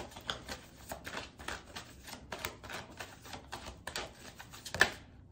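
A deck of tarot cards being shuffled by hand: a run of irregular papery clicks and snaps, about three or four a second, with one louder slap near the end.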